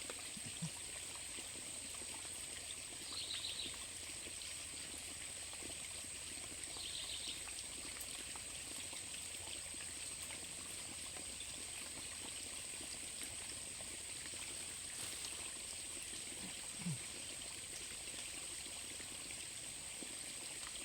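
River water flowing steadily, with a steady high-pitched whine throughout. Brief chirps come twice early on, and a short low sound near the start and again later.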